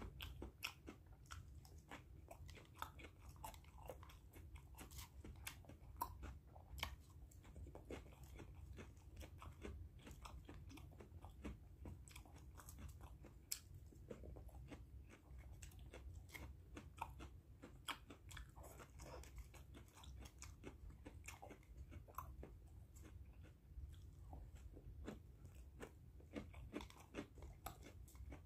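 A person chewing crunchy raw vegetable salad close to the microphone: a string of small, irregular crunches and clicks. A faint low steady hum lies underneath.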